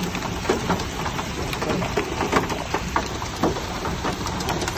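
Rain pelting a car, heard from inside, as a steady hiss with scattered sharp ticks over the low hum of the car's engine.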